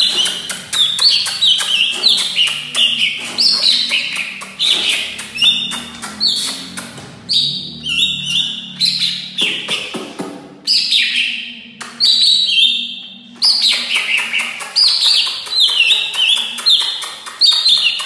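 Cucak ijo (green leafbird) singing loudly and without let-up: fast runs of sharp, high chirps, many falling in pitch, in a varied song full of mimicked phrases, with short pauses about ten and twelve seconds in.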